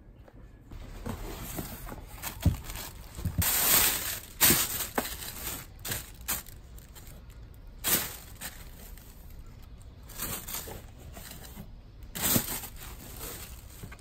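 Clothes, tissue paper and a cardboard box being handled: irregular rustling and crinkling, with louder crinkling surges about four, eight and twelve seconds in.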